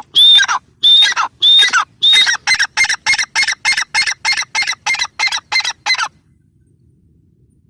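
Gray francolin calling: four loud, drawn-out notes, then a fast run of short, evenly spaced notes at about three a second that stops about six seconds in.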